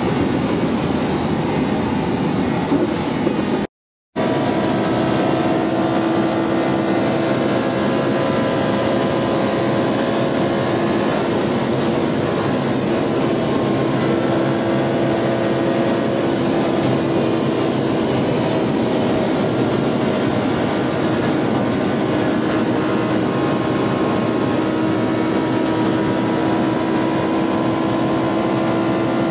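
Supercar cruising flat out in seventh gear at over 300 km/h, heard inside the cabin: a steady engine drone with a few held tones over loud wind and tyre rush. The sound cuts out completely for a moment about four seconds in.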